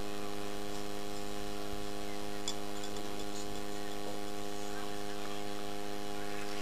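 Steady electrical mains hum from a live microphone and PA system: a low buzz with several steady tones stacked above it, and a faint click about two and a half seconds in.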